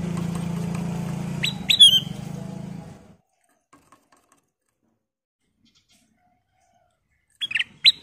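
Ruby-throated bulbul (kutilang emas) giving short, sharp calls, each note dropping quickly in pitch: two about one and a half seconds in, and a quick run of two or three near the end. A steady low hum runs under the first three seconds and then stops.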